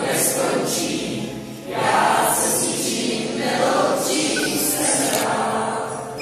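A group of teenagers singing together in chorus, getting a little louder about two seconds in.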